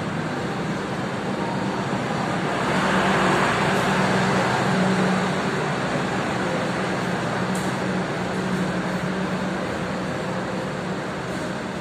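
Passenger train coaches rolling slowly through a station: a steady rumble of wheels on rail with a low hum, swelling a few seconds in.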